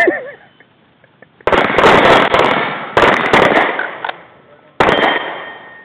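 Rapid .22 rimfire rifle shots at steel targets, mixed with the clang of plates being hit: a quick run of shots from about a second and a half to four seconds in, then one more shot near the end whose plate rings and dies away.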